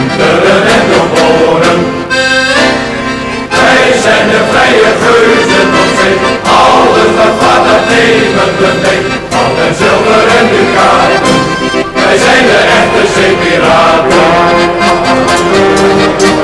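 Background music led by an accordion.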